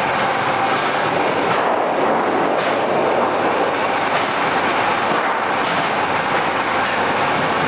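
Homemade roll-forming machine for corrugated sheet running, making a loud, steady mechanical noise with faint clicks throughout.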